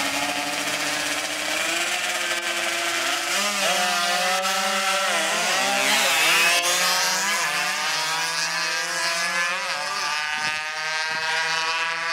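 116cc two-stroke drag bike engines revving hard at full throttle, a high, buzzing note that climbs and falls back several times as the bikes shift up through the gears, then holds high as they pull away.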